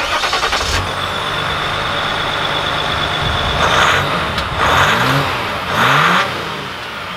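2020 Ram 1500 EcoDiesel's 3.0-litre turbodiesel V6 starts with a clattering rattle and then runs with a steady high whine, heard from beneath the truck near the exhaust. It is revved in three short blips in the second half, the pitch rising and falling with each.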